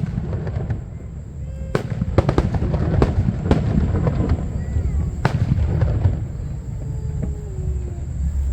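Aerial fireworks bursting: a run of sharp bangs and cracks, densest from about two to three and a half seconds in and again around five to six seconds, over a steady low rumble.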